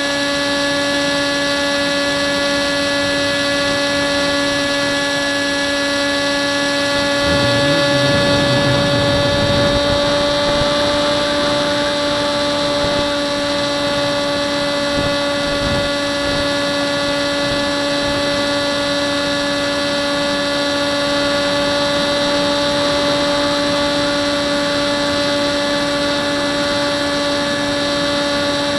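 Electric motor and propeller of a Hubsan Spyhawk model plane running at a steady throttle in flight, heard from the camera on board as a constant whine with many overtones. About seven to ten seconds in, wind buffets the microphone.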